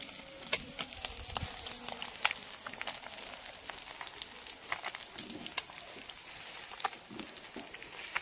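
Small fish frying in hot oil in a pan: a steady sizzle with frequent small crackles and pops.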